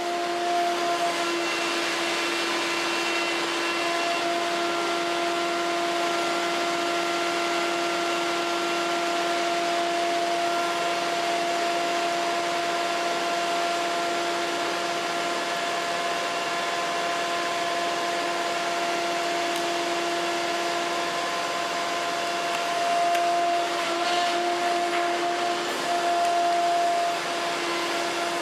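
Steady hum and whine of the hydraulics driving a DEMAREC demolition shear as it cuts thick copper power cable into short pieces. The tone shifts slightly as the jaws take load, and it grows louder for a few seconds near the end.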